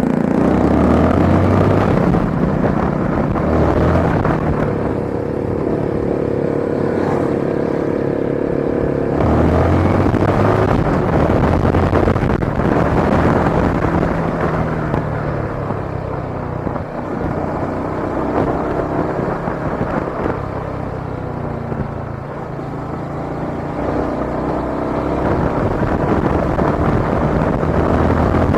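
Motorcycle engine running on the move, with road and traffic noise. A steady droning tone joins in for about four seconds, starting around five seconds in.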